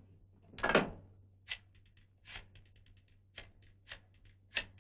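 Rotary telephone being dialled: short runs of rapid, evenly spaced clicks as the dial winds back after each digit, with a few single clicks between. A louder clatter comes about a second in as the handset is picked up.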